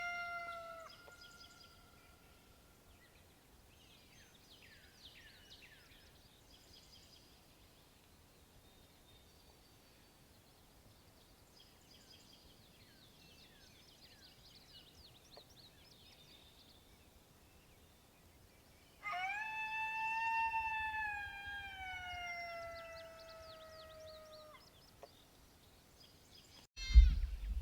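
A single long coyote howl, rising briefly and then sliding slowly down in pitch for about five seconds, sounded to call coyotes in. Faint bird chirps come before it, and a loud bump of handling noise comes near the end.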